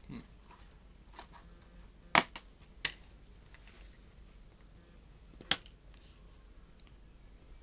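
Plastic DVD case being handled: three sharp snapping clicks, about two seconds in, again shortly after, and about five and a half seconds in, with a few fainter ticks between.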